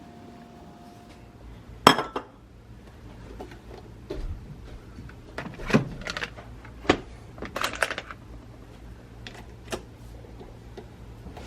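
Scattered clinks and knocks of dishes and utensils being handled, the sharpest about two seconds in and a cluster of them in the second half.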